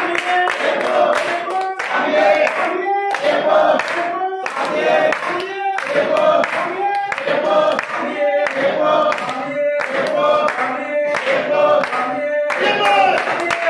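A group of men singing an Ayyappa devotional bhajan together, clapping their hands to a steady beat.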